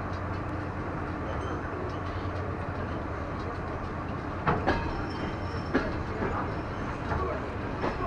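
DR1A diesel multiple unit running, heard through an open carriage window: a steady low drone with wheel rumble on the rails, and a few sharp wheel clacks about four and a half and six seconds in.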